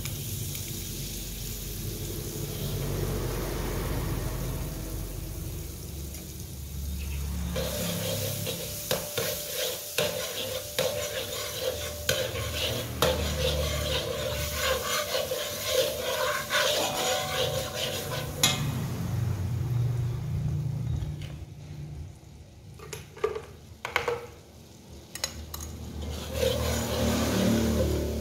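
Margarine melting and sizzling in an aluminium wok while a metal spatula stirs and scrapes the pan. The sizzle and scraping grow busy after a few seconds, then thin out to scattered taps of the spatula on the wok.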